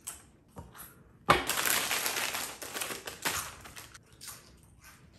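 Crackling and crunching from eating chips out of a bag: a few small clicks, then, about a second and a half in, a sudden dense burst of crackling for about two seconds that thins to scattered crackles.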